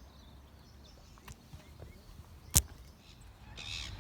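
Quiet outdoor ambience with a low rumble, broken by one sharp click about two and a half seconds in. A bird starts calling near the end.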